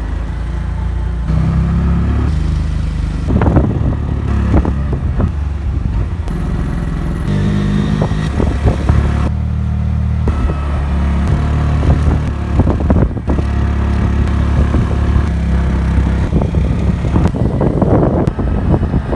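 A motor vehicle's engine running steadily, its pitch shifting now and then, with frequent rattles and knocks.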